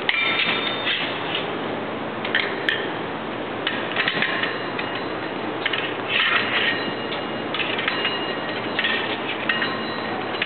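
Steel foil blades scraping and sliding against each other and against a metal bell guard in repeated metallic bouts, with a ringing edge, over a steady hiss. A few sharp clicks mark blade beats.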